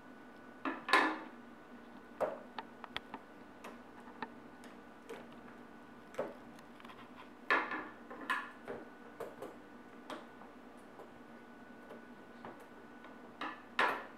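Small scissors snipping and the cardboard box being handled: scattered light clicks, with a few louder rustling scrapes about a second in, twice near the middle, and again near the end.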